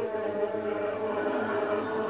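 Music, choral in the surrounding seconds, playing back from a Teac X-7R reel-to-reel tape recorder.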